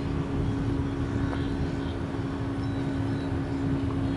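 An engine running steadily, a constant low hum over a low rumble.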